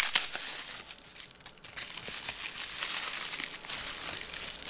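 Plastic bubble wrap crinkling and crackling in the hands as it is peeled off a small bottle, a steady stream of small crackles.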